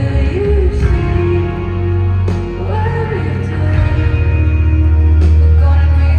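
Rock band playing live in an arena: a female lead vocal sings a melody over heavy bass, drums and keys, with the hall's reverberation.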